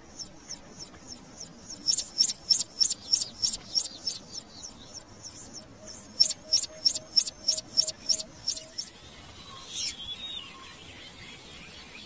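A bird repeating short, sharp, high chirps in fast runs, about four a second, which stop a little before nine seconds. After that a single falling call sounds near ten seconds over a faint hiss.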